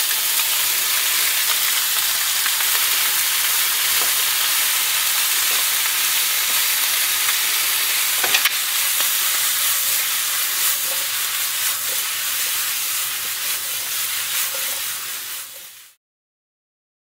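Pork, onion, carrot, pineapple and green peppers sizzling steadily in a frying pan as they are stir-fried, with a few light knocks of the spatula against the pan. The sizzle fades out about fifteen seconds in.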